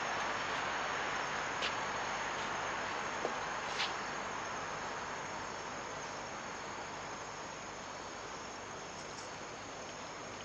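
Steady chorus of night insects, with a few faint ticks in the first few seconds.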